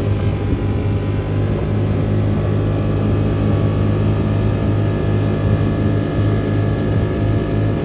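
Vehicle engine running at a steady speed with a constant low drone.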